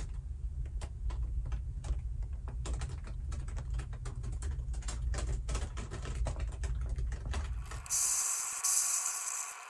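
Wet paint-pour canvas being turned and spun by hand on its stand: rapid irregular clicking and rubbing of the canvas frame against its support, over a steady low rumble. Near the end this gives way to a steady hiss.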